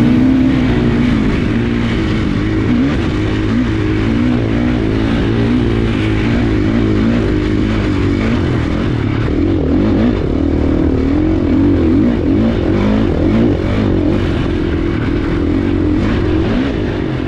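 2016 KTM 450 XCF dirt bike's single-cylinder four-stroke engine running under way, its revs rising and falling continuously as it is ridden.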